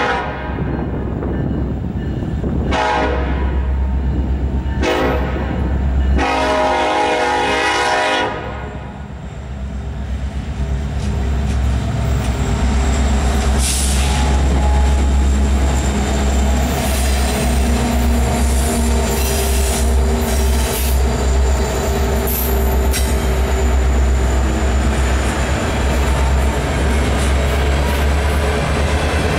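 A diesel locomotive's air horn finishes a grade-crossing signal: long, long, short, long blasts, ending about eight seconds in. Then the engines of four EMD diesel-electric locomotives (an SD70ACe leading three SD70MACs) rumble past, followed by empty coal hopper cars rolling by with clicking wheels.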